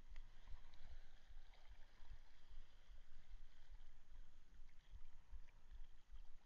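Wind buffeting an outdoor camera microphone in irregular low rumbling gusts, over a faint steady hiss with a few light ticks.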